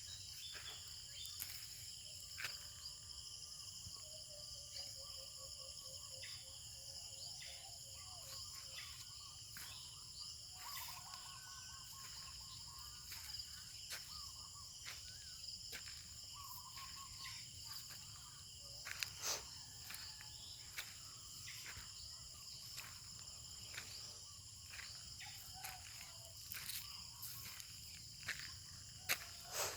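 Rural morning ambience: a steady, high-pitched chorus of insects, with birds trilling and warbling now and then. Scattered sharp clicks or taps come through it, the loudest about 19 seconds in and near the end.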